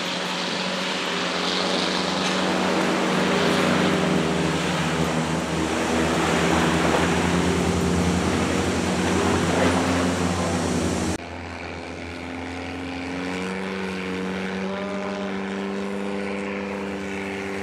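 Steady droning engine of a Thai longtail boat. About eleven seconds in it drops abruptly to a quieter, steadier drone.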